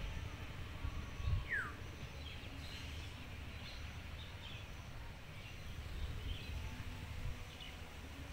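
Birds chirping over a low steady rumble, with one clear falling whistled note about one and a half seconds in and several short chirps after it.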